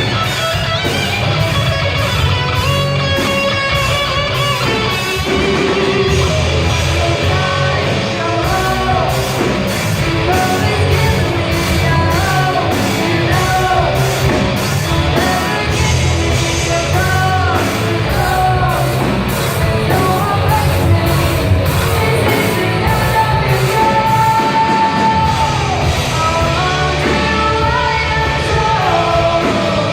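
Hard rock song playing: distorted electric guitars, bass and drums with a steady beat, under sung and yelled lead vocals.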